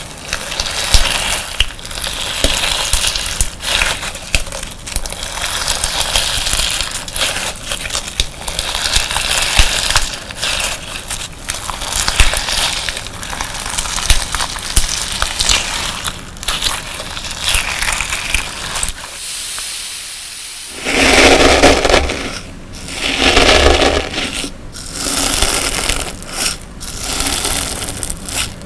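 Slime mixed with coloured sand being pressed and squeezed by hand, giving a dense crackling crunch. After a brief lull about two-thirds of the way in, it changes to fuller squelching squeezes, each about a second long, four in a row.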